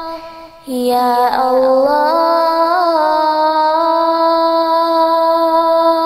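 Female voice singing a nasheed without words. After a brief dip at the start, it makes a short gliding melodic turn and then holds one long steady note.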